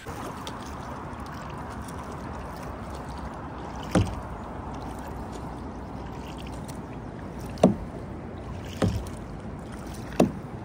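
Kayak being paddled across a lake: a steady wash of water and wind, broken by four sharp knocks spread through the second half, the loudest about two-thirds of the way in.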